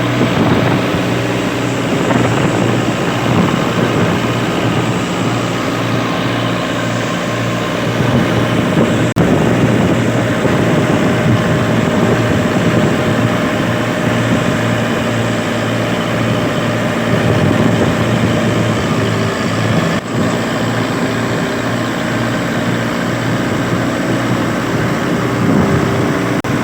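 Wheat thresher machine running steadily while threshing wheat: a loud, continuous mechanical drone with several steady pitched hums over a rushing clatter.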